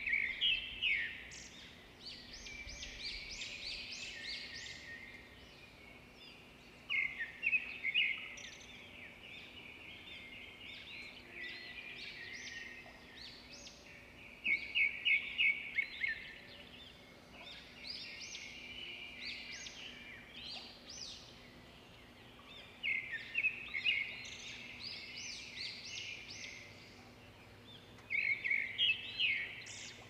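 Songbirds chirping in quick bursts of high notes, with a new burst every few seconds and quieter twittering in between.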